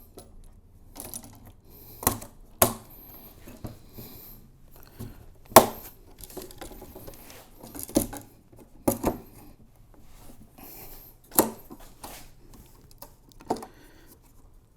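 Plastic button clips snapping shut one by one as a fabric skirt is fastened around a cart's top shelf: about seven sharp clicks at uneven intervals, with faint rustling of fabric and handling between them.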